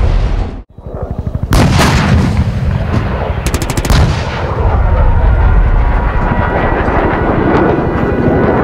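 Battle gunfire: the tail of a heavy blast cuts off about half a second in, then a dense run of rapid repeated shots, followed by continuous heavy firing with sharp cracks.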